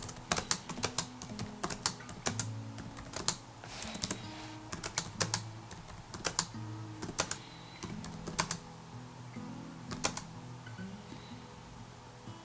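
Laptop keyboard being typed on: quick runs of key clicks for the first six seconds or so, then only a few scattered clicks. Under it, quiet background music with low sustained notes.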